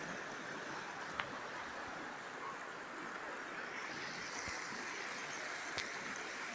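River water rushing and lapping over stone steps, a steady hiss that grows brighter about halfway through. Two sharp clicks come at about one second and near six seconds.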